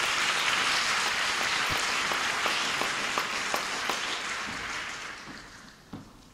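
Theatre audience applauding, a dense patter of many hands clapping that dies away about five seconds in.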